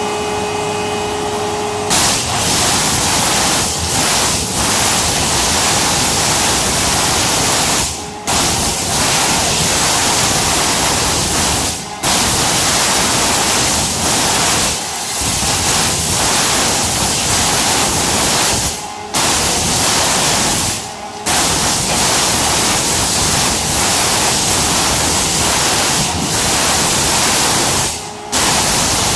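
CNC water jet cutting machine's high-pressure jet running as a loud, steady hiss, starting about two seconds in after a steady humming whine. The hiss cuts out for a moment about five times along the way.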